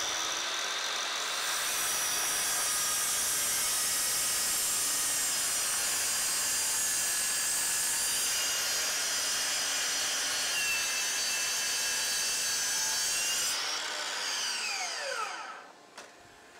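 DeWalt DCS781 60V brushless 12-inch sliding miter saw cutting through LVL (laminated veneer lumber), loud and steady for about thirteen seconds. The blade then winds down with a falling whine over about two seconds as the regenerative brake slows it, and a single click follows near the end.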